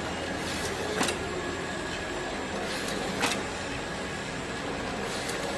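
Automatic top-and-bottom labeling machine for plastic crates running: a steady machine hum, with a sharp clack about every two seconds, each one just after a fainter one.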